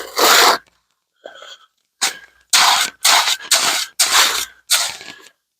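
Wet concrete mix being worked by hand with a tool: a run of short scraping strokes, about two a second, with a pause about a second in.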